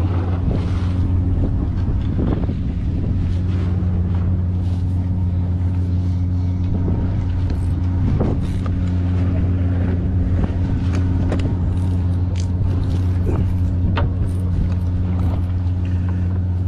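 Fishing boat's engine running steadily, a low, even drone, with scattered light clicks and knocks over it.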